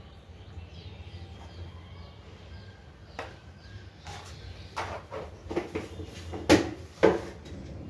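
Knocks and clatter of kitchen containers and utensils being handled, a few scattered ones and then the two loudest near the end, over a steady low hum.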